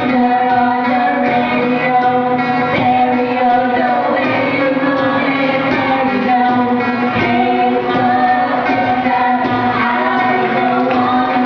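Several voices singing together in an acoustic mash-up of pop songs, with steady accompaniment.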